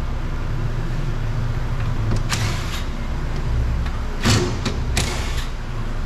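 Cordless drill/driver spinning in three short runs, backing out the door mirror's 10 mm fasteners: a longer run about two seconds in, then two brief ones around four and five seconds. Underneath is a steady low rumble from the shop.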